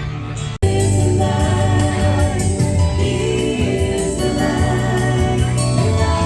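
Background Christian worship song with a choir singing over a steady beat. About half a second in, the music cuts out for an instant and comes back louder.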